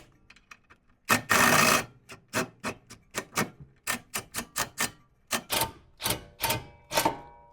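A series of sharp metallic knocks and clicks, about two to three a second with faint ringing behind the later ones, and a short harsh burst about a second in, from tools working a rear control arm bolt on a 2008 Honda Civic. The bolt may be damaging its threads.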